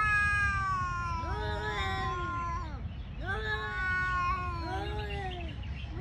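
Tomcats caterwauling in a territorial standoff: long, drawn-out yowls that waver slowly up and down in pitch, one call running into the next with little pause.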